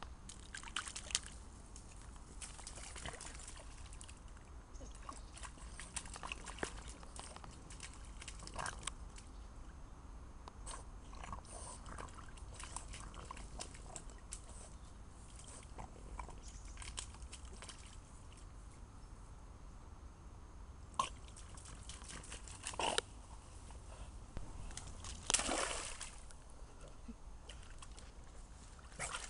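French Bulldog wading and pawing in a shallow rainwater puddle on grass: water sloshing and splattering in irregular small splashes, with a few louder ones in the last third.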